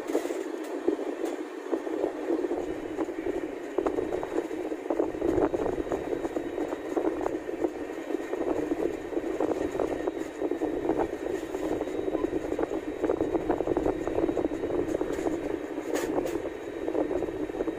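Indian Railways passenger train running at speed, heard from the side of a moving coach: a steady rumble of wheels on rail with frequent rapid clicks and rattles.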